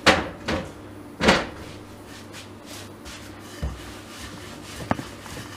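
A wooden rolling pin rolling out paratha dough on a granite countertop. There are two sharp knocks in the first second and a half, then a few soft scattered taps.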